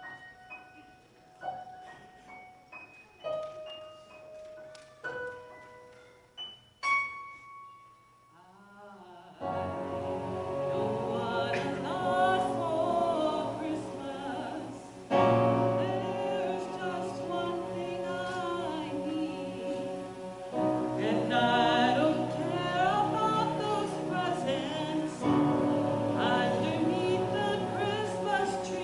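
A keyboard plays a slow introduction of single notes that ring and fade, about one every second or two. About nine seconds in, a woman starts singing a solo Christmas hymn into a microphone over the keyboard accompaniment.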